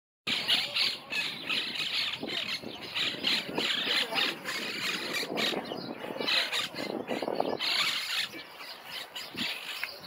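A flock of monk parakeets screeching at their communal stick nest: many harsh, overlapping squawks in a continuous din that thins a little near the end.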